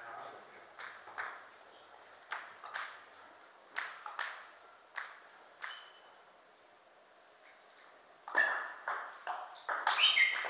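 Table tennis ball clicking off bats and table: scattered single knocks for the first few seconds, a pause, then a quick run of hits as a rally starts near the end.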